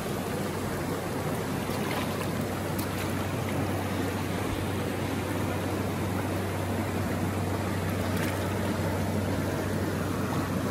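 Shallow rocky river rushing steadily through rapids and a small whitewater chute over rock ledges.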